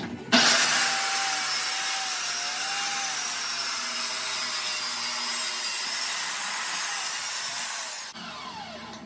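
Corded circular saw starting up abruptly and ripping a long cut through a sheet of plywood, running steadily for about eight seconds. Near the end the blade comes out of the cut and the saw spins down with a falling whine.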